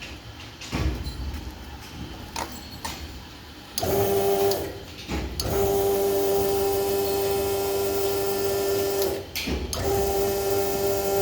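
Electric hydraulic power-pack motor built into a two-wheeler service ramp, running with a steady hum. It starts about four seconds in, stops and restarts twice, with breaks of about a second, as the switch is pressed in spells to raise the ramp. A few faint knocks come before it.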